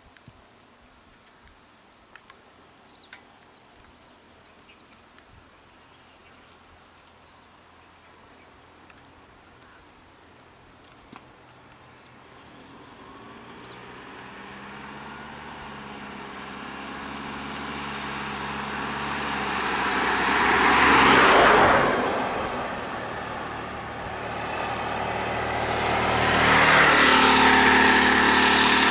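Road vehicles driving past: an engine grows louder from about halfway and peaks as one vehicle passes close by, then a second vehicle's engine rises near the end. A steady high insect drone runs underneath throughout.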